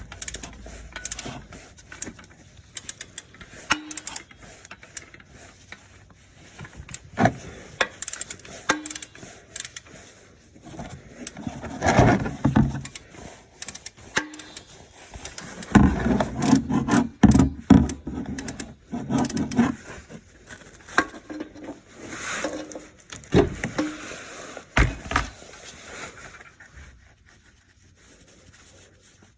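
A wrench and socket clicking, knocking and clattering against metal while loosening a stuck oil pressure switch on the engine. The knocks are irregular, with busier clusters about twelve seconds in and again from about sixteen to twenty-five seconds.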